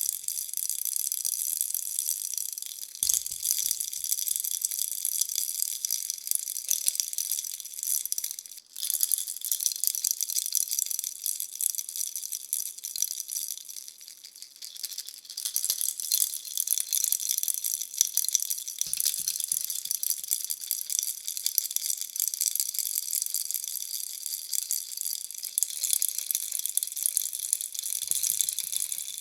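Bunny baby rattle being shaken continuously, a dense, high-pitched rattling. It breaks off briefly about nine seconds in and goes softer for a couple of seconds around the middle.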